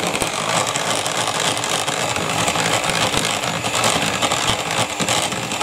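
Electric hand mixer running steadily, its beaters churning flour into cake batter in a plastic mixing bowl.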